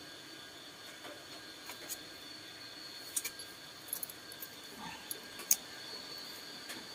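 Scattered small clicks and taps, about a dozen over several seconds, the sharpest a little past the middle, over a faint steady high-pitched hum.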